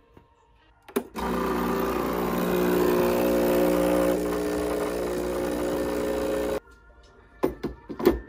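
Breville Barista Express's vibratory pump buzzing as water flushes through the empty group head for about five seconds, then cutting off suddenly. Near the end come a few sharp clicks and knocks as the metal portafilter is fitted into the group head.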